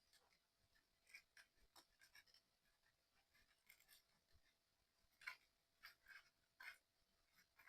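Faint, scattered clicks and light taps of small model-kit parts being handled and pressed together, with a few sharper clicks about five to seven seconds in.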